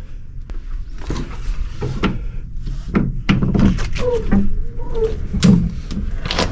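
Glass sliding balcony door of a ship's cabin being unlatched and slid open: a quick series of clicks and knocks from the handle and the door in its track.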